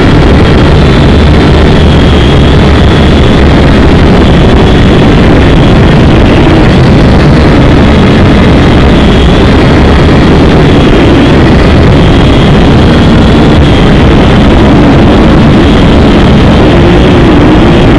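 Syma X5C quadcopter's small motors and propellers running at flight speed, heard through the drone's own onboard camera microphone: a loud, steady whir with a high whine that wavers slightly.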